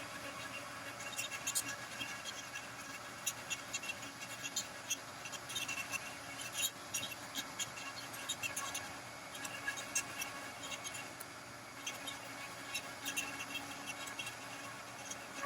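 Irregular light scratching with many small clicks, over a faint steady hum.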